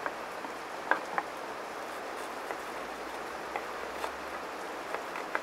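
Knife cutting through a head of lettuce on a wooden cutting board: a few scattered crisp cuts and taps of the blade against the board, over a steady background hiss.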